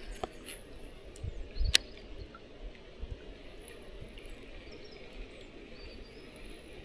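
Quiet outdoor ambience on the water, with faint high chirps and a single sharp click about two seconds in.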